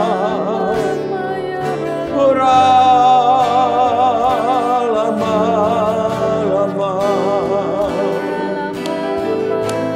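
Worship music: a man singing long, held notes with vibrato over instrumental accompaniment.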